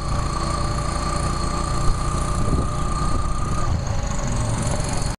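Motorcycle engine of a sidecar tricycle running while riding, a steady rumble with a thin high whine that stops about three and a half seconds in.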